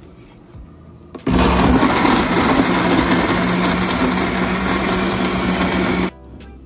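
Countertop blender running at full speed, pureeing chunks of beetroot, mango and ginger in water. Its motor hum holds steady under the loud whirring; it starts about a second in and cuts off suddenly near the end.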